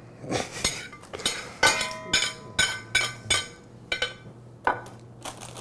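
A kitchen knife striking a ceramic plate while chopping vegetables: about ten sharp, ringing clinks at an uneven pace.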